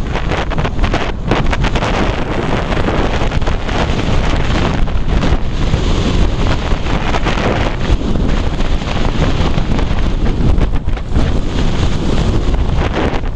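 Strong wind buffeting the microphone in loud, continuous gusts, over the surf of waves breaking against coral rock.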